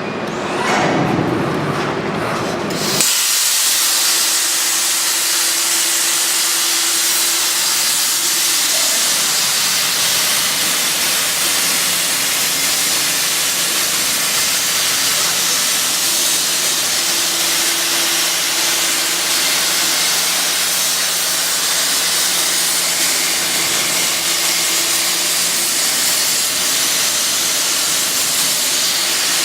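CNC plasma cutting torch firing on steel: a loud, steady hiss starts abruptly about three seconds in and runs on evenly as the machine cuts, with a faint steady hum beneath it.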